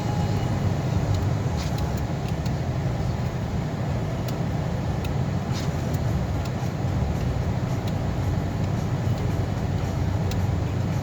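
Car driving along, a steady low road-and-engine rumble heard from inside the cabin, with a few faint ticks.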